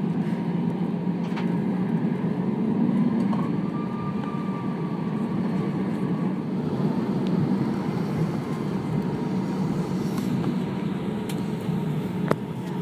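Airliner cabin noise inside an Airbus A320 on the ground at low power: a steady rumble and hiss from the engines and air-conditioning, with a faint thin whine. One sharp click comes near the end.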